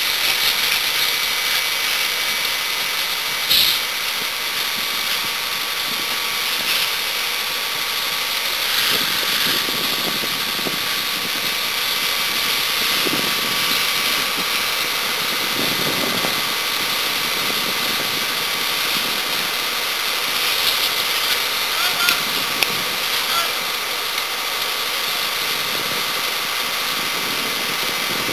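Fire engine running steadily at the scene, a constant hiss with a steady whine, as it pumps water to the hoses. A single sharp pop about three and a half seconds in.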